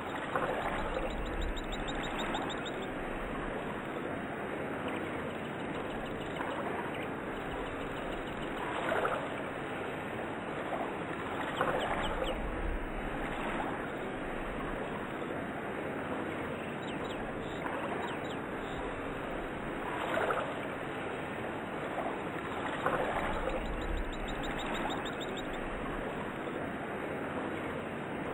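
Running water with occasional bird chirps: a steady wash of sound that swells briefly louder a few times.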